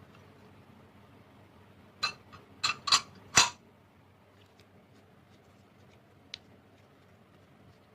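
Slime being handled, giving a quick run of about five sharp pops and clicks over a second and a half, the last one the longest and loudest, then a single small tick a few seconds later.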